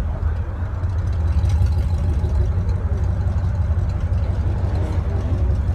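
Pickup truck's loud exhaust idling steadily with a deep rumble.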